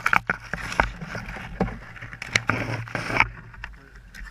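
Leafy branches brushing and scraping against a helmet-mounted camera in several rustling bursts, with sharp knocks, over the low steady idle of a dirt bike's engine. The rustling stops about three seconds in.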